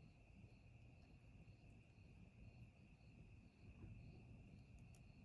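Near silence, with faint insect sound: a steady high trill and a soft chirp repeating about twice a second.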